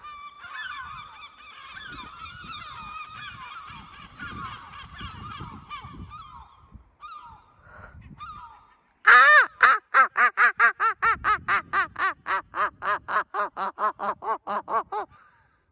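Gull giving a long call: a loud run of about twenty arching calls, nearly four a second, lasting about six seconds. Before it, fainter overlapping bird calls for several seconds.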